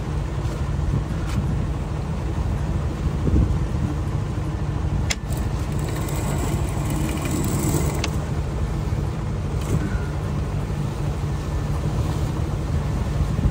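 Sailboat's inboard engine running steadily under way, a low rumble with wind and water noise over it. Two sharp clicks come about five and eight seconds in.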